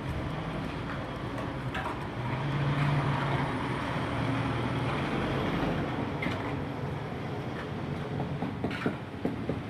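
A motor vehicle's engine rumbling past, swelling for a few seconds in the middle and easing off, with a few sharp taps near the end.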